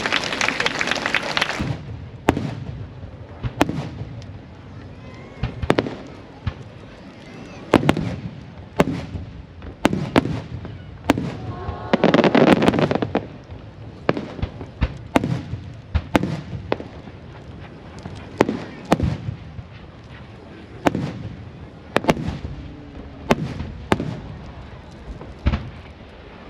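Fireworks shells bursting overhead: a string of sharp bangs at irregular intervals, a second or two apart, with two denser, louder stretches, one at the start and one about halfway.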